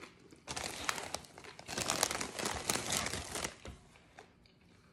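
Foil Doritos bag crinkling as a hand rummages in it for chips, in two spells of crackling, about a second and then nearly two seconds long.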